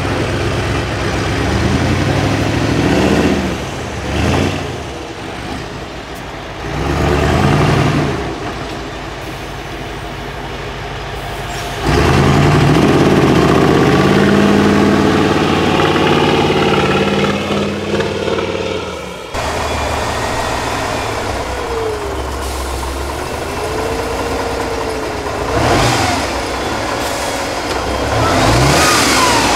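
Diesel engines of heavy off-road trial trucks revving and labouring under load as they crawl over steep dirt obstacles, the engine note rising and falling with the throttle.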